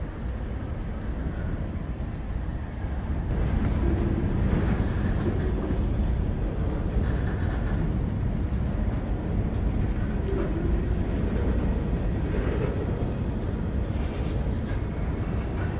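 Freight cars rolling past close by: a steady rumble of steel wheels on rail from covered hopper cars, getting louder about three seconds in, with a few faint brief squeals.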